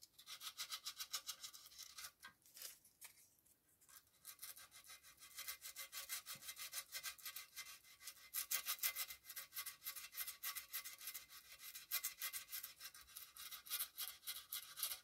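Folded 180-grit sandpaper rubbing back and forth over Milliput epoxy putty filler on a porcelain figure: a faint, quick scratching at about four strokes a second, with a short pause about three seconds in.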